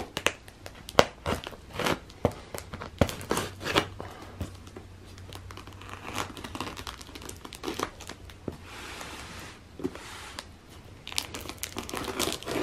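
Clear packing tape on a cardboard box being cut and pulled loose, giving irregular sharp crackles and tearing sounds. They come thickly at first, thin out in the middle and pick up again near the end.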